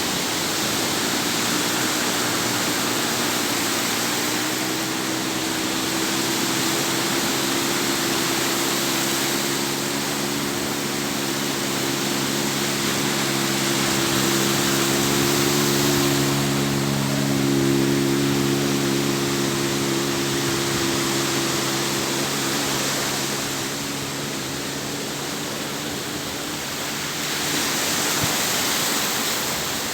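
Sea waves washing in a steady rush of surf that slowly swells and eases. A low steady drone, like a distant motor, runs under it for most of the stretch and fades out near the end.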